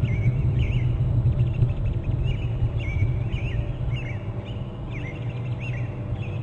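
A bird calling in a steady series of short chirps, roughly one or two a second, over a steady low rumble.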